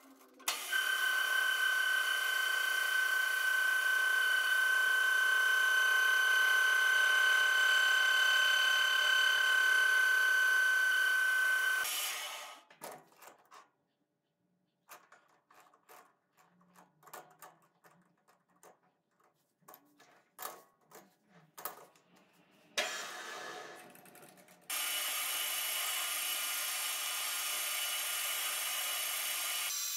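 Small metal lathe running with a steady whine while a knurling wheel presses a pattern into a steel rod; it stops about 12 seconds in. Then come scattered clicks and knocks of metal parts being handled. Near the end the lathe starts again and runs steadily.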